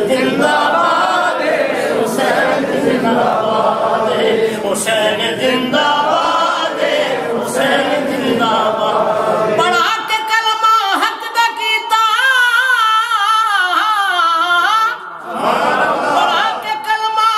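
Unaccompanied male singing of an Urdu naat. For about the first ten seconds the voices sound full and dense. After that a single voice holds long, ornamented notes with a wavering pitch, breaks off briefly near fifteen seconds, and starts a new phrase.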